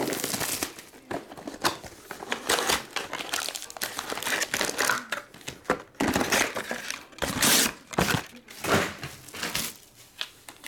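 Plastic wrapping and foil trading-card packs crinkling and rustling in the hands as a sealed card box is unwrapped and opened, in irregular bursts that are loudest in the second half.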